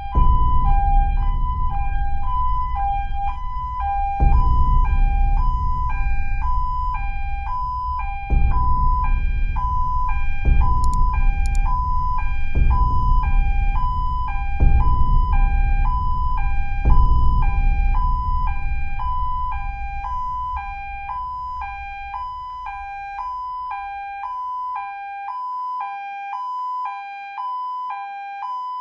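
Toy Playmobil police van's electronic two-tone siren sounding, a tinny hi-lo alternation repeating evenly. A low rumble sits underneath in stretches for the first twenty seconds or so, then dies away; a couple of faint clicks come about eleven seconds in.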